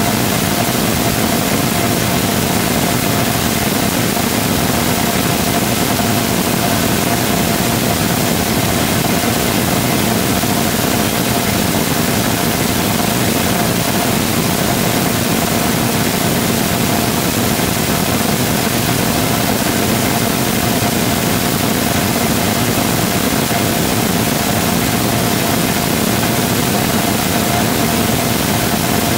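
Full-scale 3D-printed Rotating Detonation Rocket Engine combustor in steady burn on a test stand: a loud, unbroken rush of exhaust noise with a steady high tone running through it.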